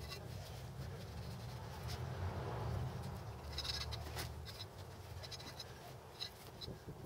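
Faint scratching and light taps of a brush spreading bead sealer along a small tire's bead at the rim, over a low steady background rumble.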